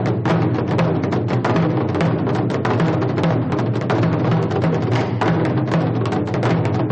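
Drum beaten in a rapid, steady stream of strokes, several a second, with a deep resonant body.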